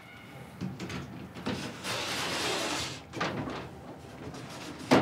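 A wooden sliding door in a Japanese tea room being slid open along its track, a rough scraping run of a second or two, followed near the end by a single sharp knock.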